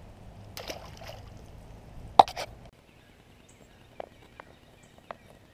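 A few short wet splashes and knocks from a small bass being handled at the pond's edge, the sharpest about two seconds in. After that only a few faint ticks.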